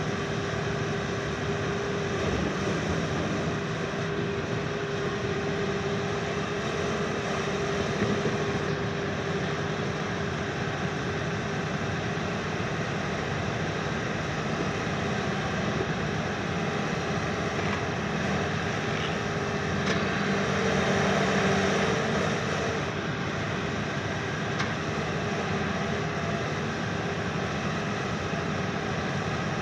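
Diesel engine and hydraulics of a Hitachi KMC 380 S long-front demolition excavator running steadily as it moves its boom and grapple. A steady whine is heard in the first third, and the machine grows louder for a couple of seconds about two-thirds of the way through.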